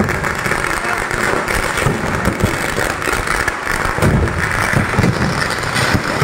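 Ground fireworks going off: a dense, unbroken run of firecracker bangs and crackling, with many low thumps.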